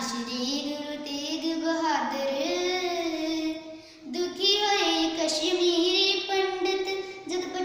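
A young girl singing a Punjabi devotional poem unaccompanied, in long held notes that glide between pitches, with a brief break a little past halfway.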